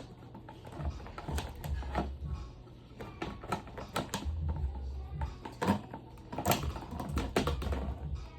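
A plastic table fan being taken apart by hand: irregular clicks and clacks of its parts, with short low thumps as pieces are handled and set down.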